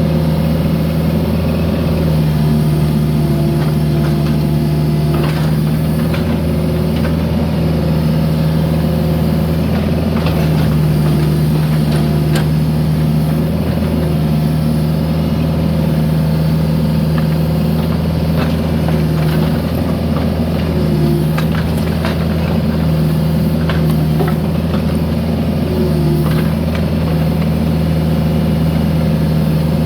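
Mini excavator's diesel engine running steadily at working speed, its pitch dipping slightly now and then under hydraulic load. Scattered sharp clanks and knocks of the bucket working broken concrete.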